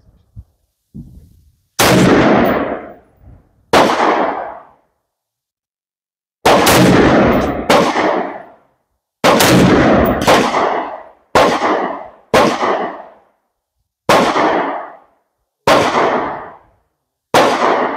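AR-15 rifle fired semi-automatically, one aimed shot at a time: about ten loud gunshots at uneven intervals of one to two seconds. Each shot is followed by a ringing echo that dies away over about a second.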